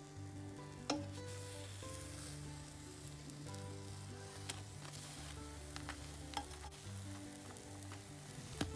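Pancake batter sizzling as it fries in a hot pan, with a few sharp clicks of a spatula against the pan, the loudest near the end as a pancake is lifted to be turned. Soft background music with low held notes plays underneath.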